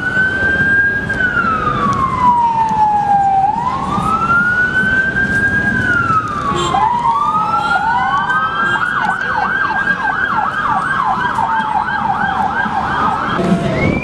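Police van sirens: one sounds a slow wail, rising and falling every four seconds or so. About eight seconds in, a second siren joins it with a fast yelp of about two sweeps a second.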